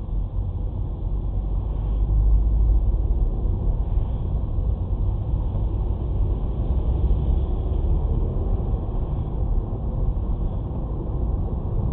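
Steady low rumble of a car driving on a wet road, heard from inside the cabin, with tyre hiss above it.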